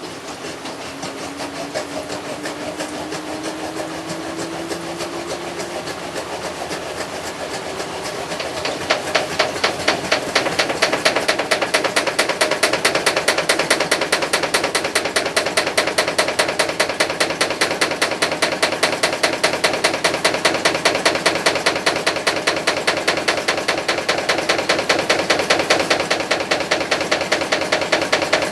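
Panasonic NA-VX7000R drum washer-dryer spinning up in its spin cycle, its motor whine rising in pitch. About nine seconds in, a loud, rapid, regular knocking starts and keeps on: the abnormal spin noise that appears when the load is slightly unbalanced, which the owner takes for an internal part hitting something.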